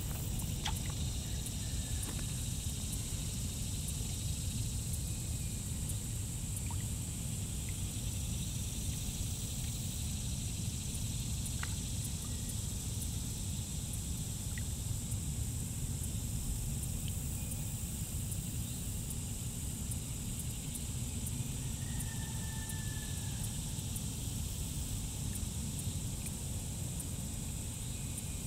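Steady outdoor background noise at a pond's edge: a low rumble with a high, even hiss above it, broken only by a few faint clicks and one short faint chirp.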